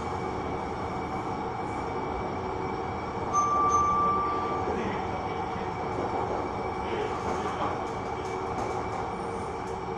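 Interior running noise of a Siemens S200 LRV4 light-rail car in motion: a steady rumble and hiss, with a brief high squeal from the wheels a little over three seconds in.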